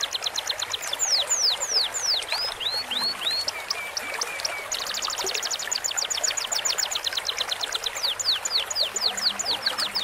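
Cage-bird songs laid over trickling stream water: very fast rapid-fire trills alternate with runs of downward-sweeping whistled notes, with a few short level notes in between.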